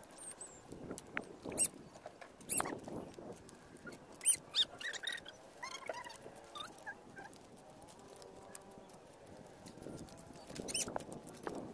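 Pebbles and shells clicking and clacking against each other as someone picks through a stony shore by hand, in scattered sharp knocks a few seconds apart.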